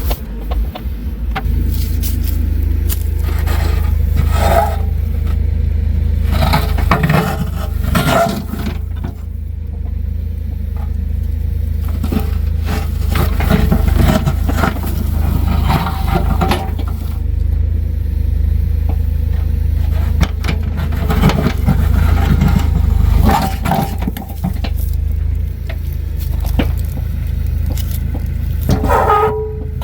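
A digging machine's engine running steadily while its bucket scrapes and clatters against stones and soil, scooping them away from a house foundation.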